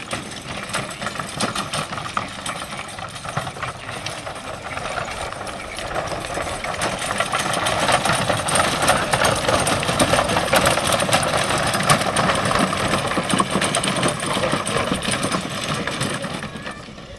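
Wooden horse-drawn wagon on spoked wheels rattling and clattering as a pair of horses pull it over rough grass. It grows louder as it passes closest about halfway through, then falls away near the end.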